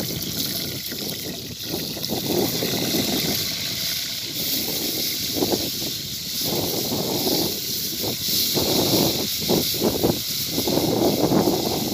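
Small lambari fish sizzling in shallow hot oil in an aluminium pan over a wood fire, as more pieces are laid in. A steady hiss, with uneven lower noise coming and going.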